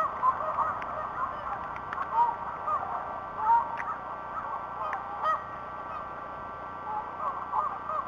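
Many short bird calls from a flock, overlapping and coming continuously, over a faint steady whine.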